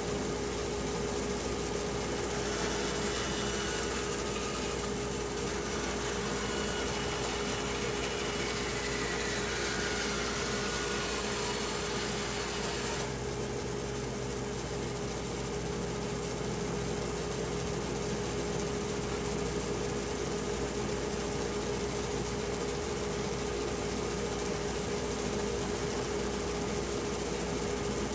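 Woodworking power tool running with a steady hum. From about two seconds in, an added noise joins it, its pitch slowly falling, as of the machine working through wood; it stops suddenly about thirteen seconds in.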